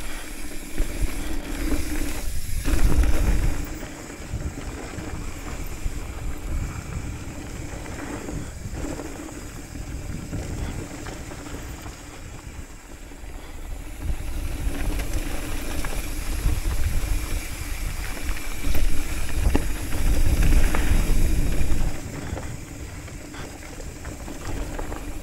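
Hardtail mountain bike descending a dirt and rocky trail: tyres rolling and the bike rattling over the ground under steady wind rush on the microphone, louder from about a quarter of the way through to near the end.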